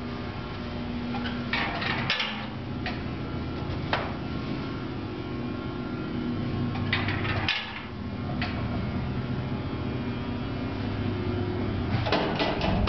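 Old elevator car with a lattice scissor gate travelling up its shaft: a steady motor hum, with rattles and knocks from the car now and then, at about 2, 4, 7 and 12 seconds.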